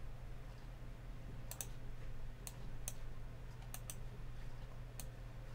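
Computer mouse buttons clicking about seven times, some in quick pairs, over a faint steady low hum.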